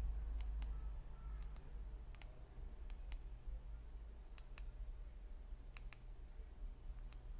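Keys of a ZTE keypad mobile phone clicking under a thumb, mostly in quick pairs of clicks about every one and a half seconds, over a low hum.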